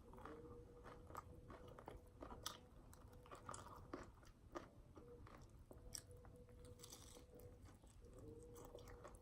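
Faint close-up chewing of nachos, with scattered small crunches and mouth clicks.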